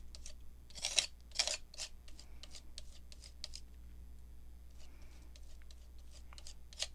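A few short scrapes and taps of craft tools and paper being worked on a tabletop, loudest about a second in, over a steady low hum.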